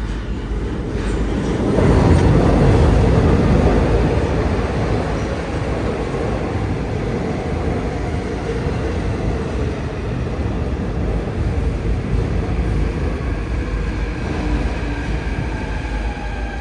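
Seoul Subway Line 2 train pulling into a station behind platform screen doors. The running rumble of wheels and cars is loudest a couple of seconds in, then settles to a steady run as the train slows. Near the end, the traction motors' whine falls in pitch as the train brakes.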